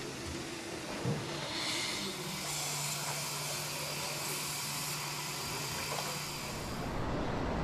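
Robotic milling cell machining a titanium fan blade under a coolant spray: a steady hiss over a low machine hum.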